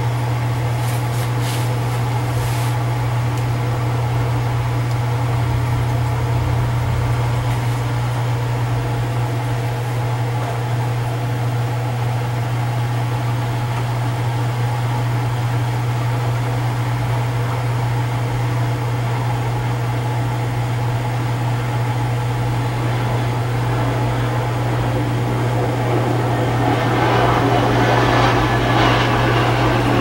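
Electrolux LFE10 front-load washing machine draining, its drain pump running with a steady hum. The machine grows noisier over the last few seconds.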